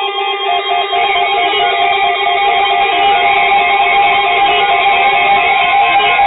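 Music: a repeating plucked, guitar-like pattern of notes over steady held tones, growing a little louder about a second in.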